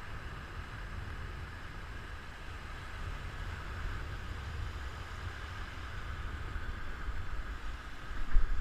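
Small waves washing in shallow surf under a steady, fluctuating low rumble of wind on the camera microphone, with a bump near the end.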